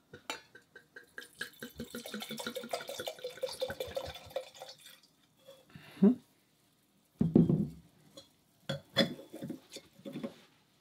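Red wine pouring from a bottle into a stemmed wine glass for about five seconds, then several separate knocks as the bottle and glass are set down on a wooden bar counter.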